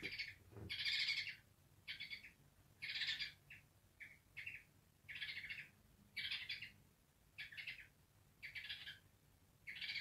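African grey parrot giving short, high calls over and over, roughly one a second, in the agitated state the title calls angry.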